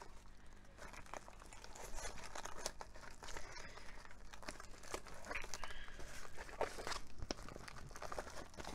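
Crinkling and rustling of plastic packaging being handled and folded away by hand, in a string of irregular crackles.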